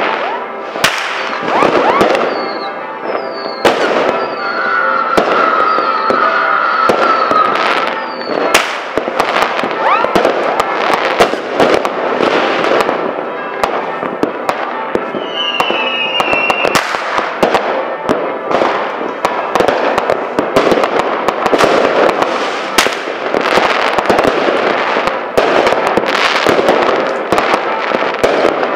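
Fireworks going off: a dense, continuous run of bangs and crackles, with a wavering whistle about five seconds in and a short falling whistle around the middle.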